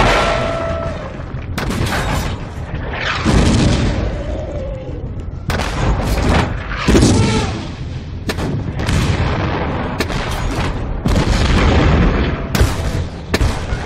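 Movie battle sound effects: a string of heavy cannon booms and explosions, a blast every second or so, each trailing into a low rumble, with gunfire cracking between them.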